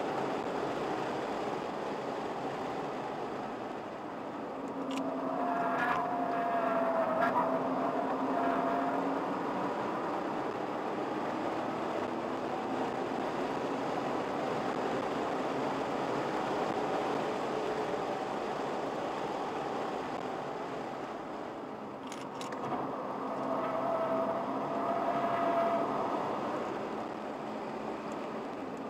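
A car driven on a race circuit, heard from inside the cabin: a steady rush of engine and tyre noise, with the engine note coming up clearly twice, a few seconds in and again about two-thirds of the way through. A few brief clicks are heard alongside.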